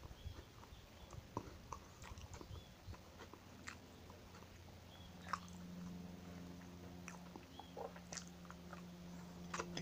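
Close-up eating sounds of a crisp piped butter cookie: scattered small crunches and mouth clicks of chewing, with a sharper bite-crunch near the end. A faint steady low hum comes in about halfway.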